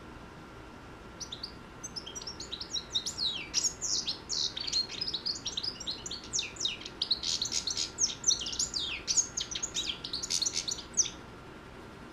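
Young European goldfinch singing: a fast, continuous twittering run of high chirps and sweeping notes that starts about a second in and stops about a second before the end.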